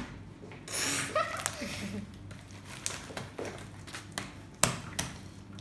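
A handful of sharp slaps and pops as a lump of slime is handled and slapped against a wooden tabletop, spaced unevenly, the loudest about two-thirds of the way in.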